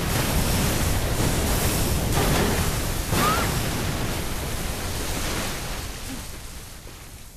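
Loud, steady rush of water spraying and gushing, fading away over the last two seconds or so.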